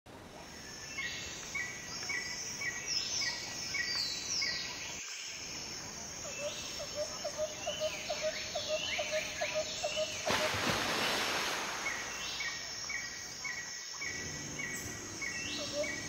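Several birds calling over a steady outdoor hiss. There are repeated trains of short high chirps about three a second, falling whistled notes, and in the middle a quicker run of lower notes. About ten seconds in comes a brief burst of rushing noise.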